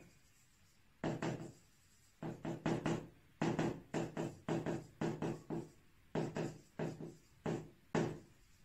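A series of taps or knocks in short, irregular clusters of two or three strokes.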